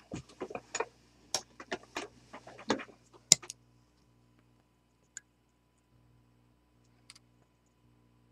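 A quick run of light clicks and taps from small metal parts and tools being handled on a steel bench block, ending in one sharp click about three seconds in; after that only a couple of faint ticks over a low steady hum.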